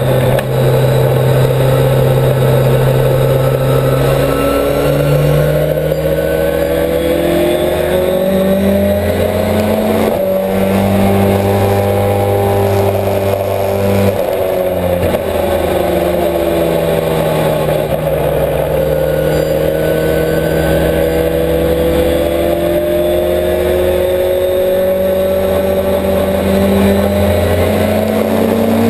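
Millington-engined Ford Escort race car's engine heard from inside the stripped cabin, pulling at moderate revs; the pitch climbs slowly and drops back at gearchanges about a third of the way in and again halfway, then rises steadily through the last part.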